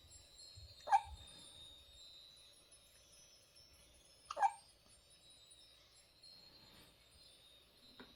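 An 18-day-old newborn baby hiccuping: two sharp hics about three and a half seconds apart, each with a short squeak of voice, and a faint third one right at the end.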